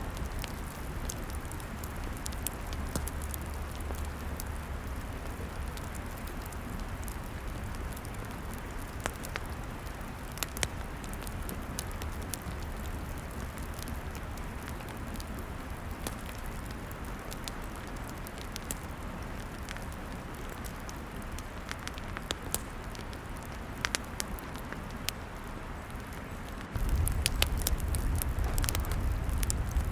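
Log fire crackling, with scattered sharp pops and snaps over a steady hiss. Near the end a low rumble underneath becomes suddenly louder.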